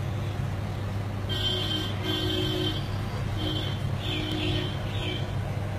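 Steady low machine hum, with a few faint, short high-pitched tones over the middle seconds.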